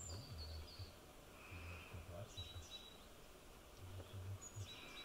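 Faint outdoor ambience: a small bird gives short high chirps now and then, over patches of low rumbling.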